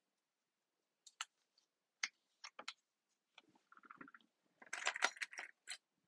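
Small plastic sewing clips being snapped onto a folded fabric edge, giving a few sharp clicks, followed by a longer stretch of fabric rustling and hand handling that is loudest near the end.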